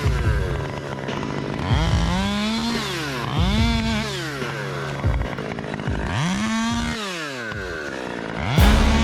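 Two-stroke chainsaw revved hard and let fall back toward idle about four times, each rev a quick rising whine that holds briefly and then drops.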